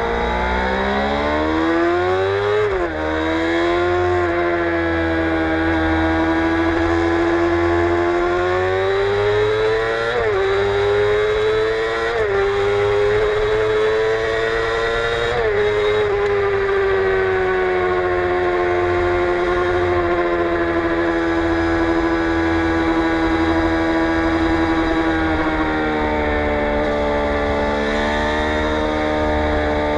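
Suzuki GSX-R 600 K7 inline-four sportbike engine through a Yoshimura R55 slip-on exhaust, revving up under acceleration with a sharp drop in pitch at an upshift about three seconds in. It climbs again with further quick shifts around ten, twelve and sixteen seconds in, then its note falls slowly as the bike eases off and settles to a steady pitch near the end.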